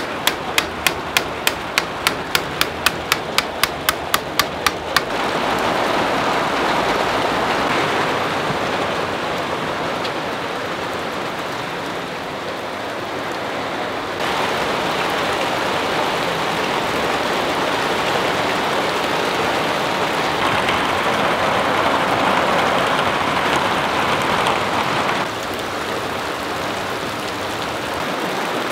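Sharp, evenly spaced ticks, about four a second, for the first five seconds, then heavy thunderstorm rain on a tin roof as a steady hiss, stepping louder about fourteen seconds in and softer a few seconds before the end.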